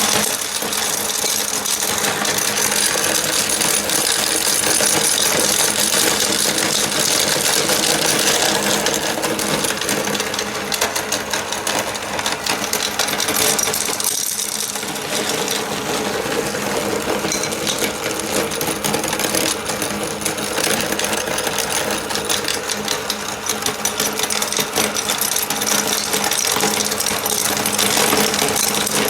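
Electric meat grinder's motor running steadily while it crushes hard M&M candies, with a dense, continuous crackle and rattle of the candy shells breaking. The crackle eases for a moment about halfway through.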